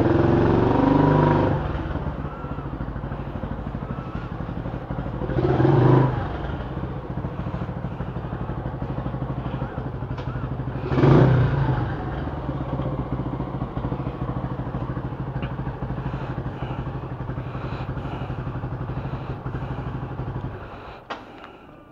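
Yamaha Enticer motorcycle's single-cylinder engine idling, revved briefly three times, then switched off near the end, followed by a sharp click.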